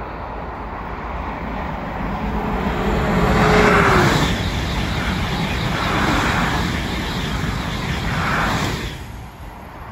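Two coupled TGV high-speed trainsets, a Ouigo double-deck set trailing, passing at full line speed. A rising rush as the leading power car approaches, with a short falling whine as it goes by, then the steady rushing of the carriages with swells as the rear power car passes, dropping off sharply about nine seconds in.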